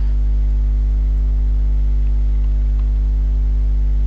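Steady electrical mains hum with a stack of even overtones, loud and unchanging, with a few faint clicks.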